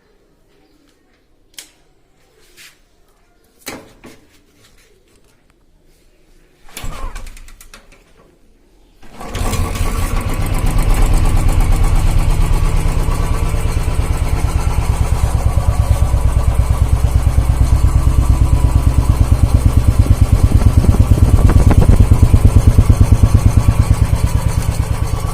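A few light clicks and a short burst about seven seconds in, then about nine seconds in a Royal Enfield Bullet's single-cylinder four-stroke engine starts and runs with an even, steady thump.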